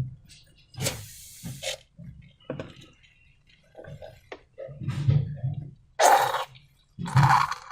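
Slime and rubber balloons being handled by hand: a run of soft thumps and squishes with a few short rustling hisses.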